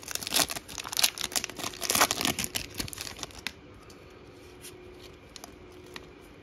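Foil wrapper of a Donruss football card pack being torn open and crinkled for about three and a half seconds, then faint ticks as the stack of cards is handled.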